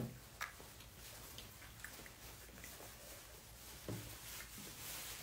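Quiet room with a low hum and a few faint, short clicks and taps of wooden chopsticks on plastic sushi trays.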